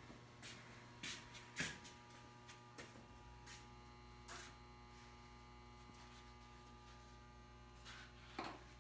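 Near silence: a faint steady electrical mains hum, joined by a lower hum about three seconds in, with a few soft knocks and scuffs from someone moving about.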